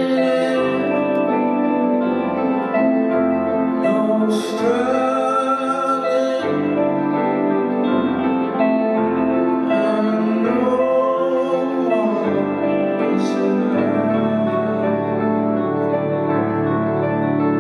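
Live band performance of a piano ballad: a man sings over sustained piano chords, with low bass notes repeating underneath.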